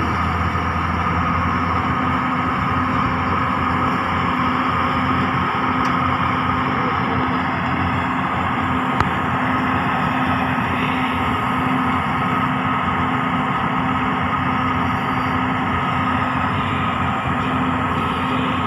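Large Hyundai hydraulic excavator's diesel engine running at a steady pitch, with one sharp click about nine seconds in.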